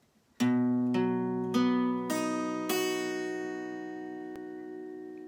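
A guitar playing a B major chord, its strings plucked one at a time from the lowest B upward, five notes about half a second apart, then left to ring and slowly fade.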